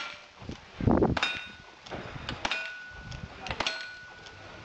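Gunshots about a second apart, each followed by the ringing clang of a hit steel target plate; the loudest shot comes about a second in.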